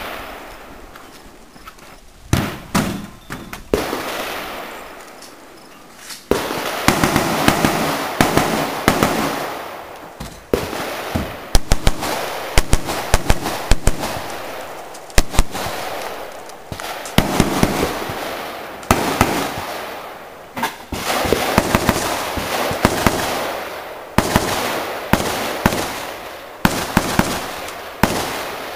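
AR-15-style semi-automatic rifles fired in quick strings of shots, with short pauses between strings. Each sharp crack is followed by a long echo that fades over a second or more.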